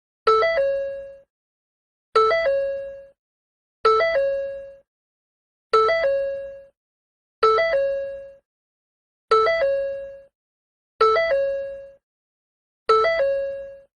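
Ford car's door chime sounding over and over, about one ding every two seconds, each struck sharply and fading away within a second: the warning chime that a door is open.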